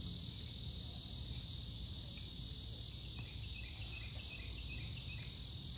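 Steady high-pitched drone of a summer insect chorus, with a low rumble underneath.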